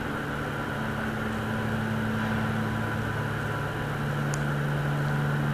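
Steady low drone of a ferry's engines heard inside its enclosed vehicle deck: a few held low tones that shift slightly in pitch over a hiss.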